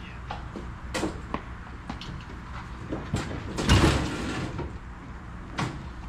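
Clanks and knocks of a heavy 1948 Gilbarco gas pump, about 300 pounds, being wheeled on a hand truck down a trailer's ramps, with one loud thud about four seconds in.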